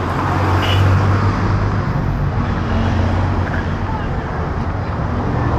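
Busy street-market ambience: a motor vehicle's engine running close by, loudest about a second in, over the chatter of people's voices.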